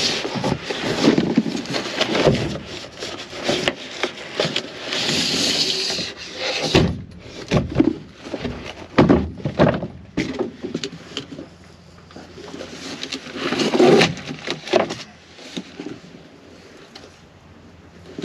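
Cardboard box and vinyl carry bag being handled as traction boards are slid out of their packaging: irregular scraping and rustling with sharp clicks and knocks, and a longer sliding hiss about five seconds in. It grows quieter near the end as a plastic bag of parts is handled.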